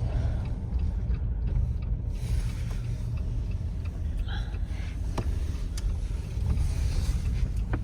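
Road and engine noise inside a moving Jeep's cabin: a steady low rumble, with a few faint clicks.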